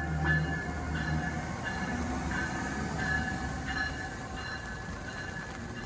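Amtrak passenger train led by an ACS-64 electric locomotive passing alongside the platform: steady rumble of wheels on rail, heaviest at the start as the locomotive goes by. Short high-pitched wheel squeals come and go throughout as the passenger cars follow.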